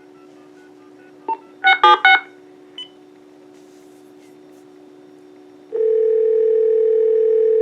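Uniden EXS2080 cordless phone placing a call: a keypad beep, then three quick touch-tone bursts about two seconds in and another short beep. From about six seconds a steady ringback tone sounds for about two seconds, over a faint steady hum.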